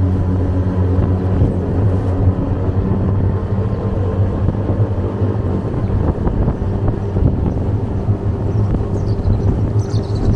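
Small motorboat's engine running steadily at speed, with water splashing and rushing along the hull.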